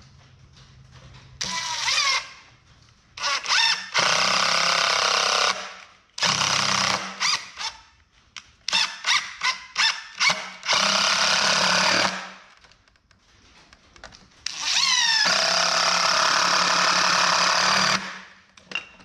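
Cordless impact driver driving wood screws through a board into wooden blocks. It makes about six runs of one to three seconds each, some opening with a rising whine, with a string of short trigger taps in the middle; the longest run comes near the end.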